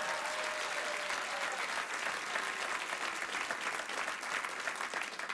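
Studio audience applauding, a dense steady clapping that begins to thin out near the end.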